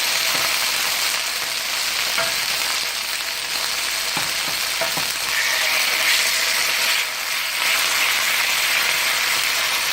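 Chicken thighs frying in hot oil in a pan, a steady sizzling hiss as they brown, with a couple of faint knocks about four and five seconds in.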